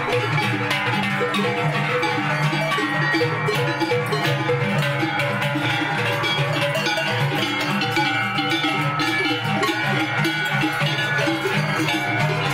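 Many cowbells ringing and clanking without a break as a herd of cattle walks by, with music playing underneath.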